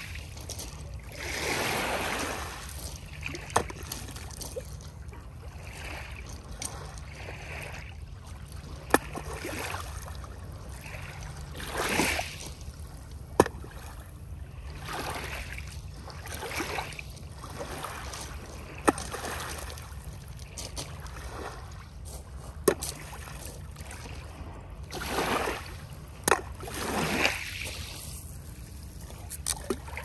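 Gentle surf of a calm sea: small waves wash in and draw back every few seconds, the biggest about two seconds in and twice near the end. Sharp single clicks come now and then between them, over a steady low rumble.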